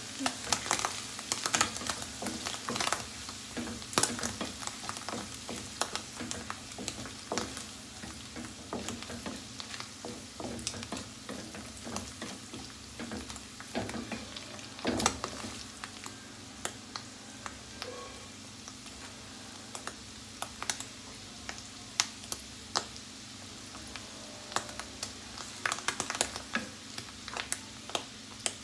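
Sliced button mushrooms sizzling in melted butter in a non-stick frying pan. A wooden spatula stirring them adds frequent sharp clicks and scrapes against the pan.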